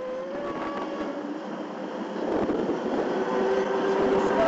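A motor running and growing steadily louder, with faint whining tones that drift slowly up in pitch.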